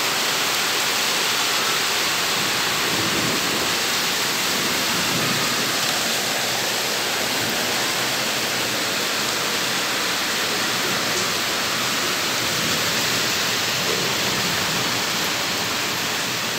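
Heavy rain falling steadily: a dense, even hiss that holds at one level throughout.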